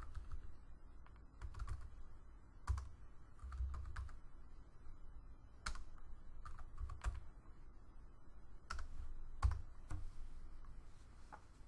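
Typing on a computer keyboard: scattered keystrokes in short, irregular bursts.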